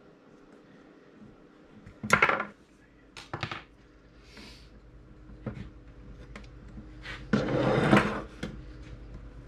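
Metal parts of a Mahlkönig E65 coffee grinder's motor and gear assembly being handled and set down on a wooden workbench: irregular clatter and knocks, with a short loud cluster about two seconds in and a longer, louder clatter near the end.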